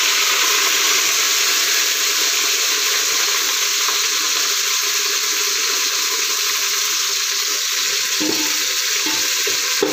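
Fresh mint leaves sizzling in hot oil and ghee in an aluminium pot, a steady loud hiss. Near the end a metal slotted spoon stirs them, scraping against the pot.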